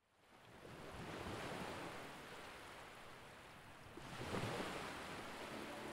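Ocean waves washing, fading in from silence over the first second, with a louder surge of surf about four seconds in.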